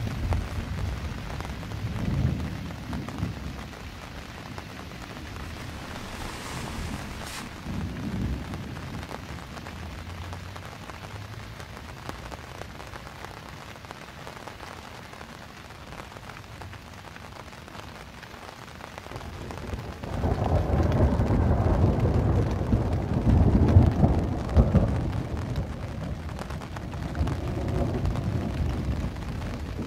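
Steady rain falling on a canvas tent, with rumbles of thunder. A long, loud roll of thunder comes about two-thirds of the way through, followed by a smaller one.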